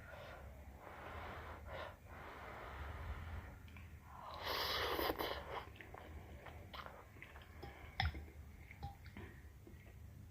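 A person eating hot soupy noodles close to the microphone: breathy exhales and blowing on the hot food, slurps, and soft chewing clicks. The loudest breathy rush comes about four and a half seconds in.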